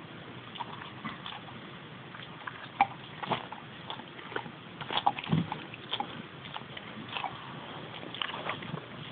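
Staffordshire bull terrier licking and nibbling at its own leg and chest: irregular wet smacking and clicking of the mouth, busiest in the middle.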